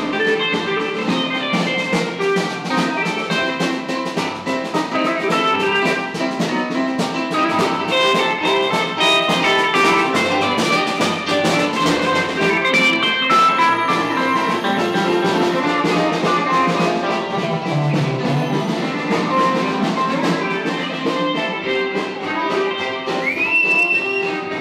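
Music with guitar and a steady drum beat, loud and continuous. A short high whistle-like tone rises and holds briefly near the end.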